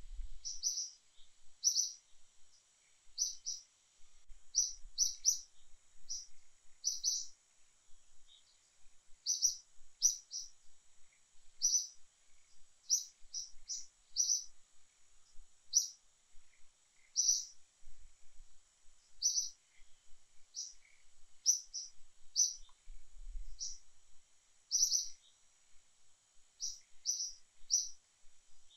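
Birds chirping in the forest canopy: short, high-pitched chirps repeating irregularly, about one or two a second, over a steady high-pitched background hum.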